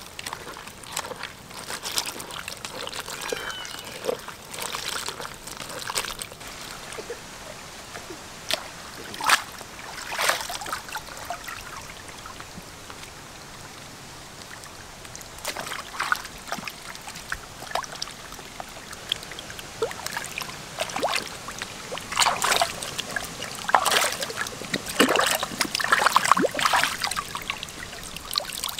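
Water trickling and splashing in irregular bursts, with the splashes coming thicker and louder near the end.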